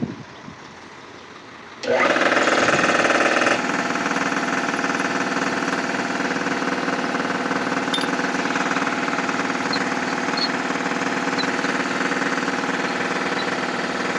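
A machine running steadily with an even, buzzing pitch, coming in abruptly and loud about two seconds in after a quieter stretch.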